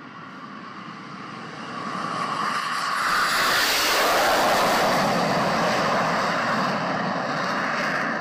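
Learjet business jet's engines at takeoff power: the jet noise grows louder as it comes down the runway, is loudest as it passes overhead about four seconds in, then eases slightly as it climbs away.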